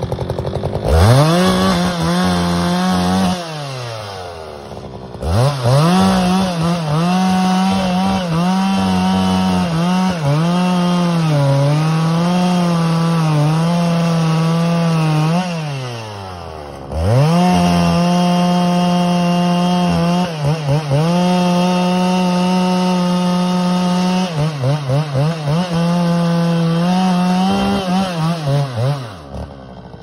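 Two-stroke chainsaw revved to full throttle and cutting into larch wood, its pitch sagging and recovering under load. It falls back to idle twice, and near the end the throttle is blipped in quick pulses before the saw drops away.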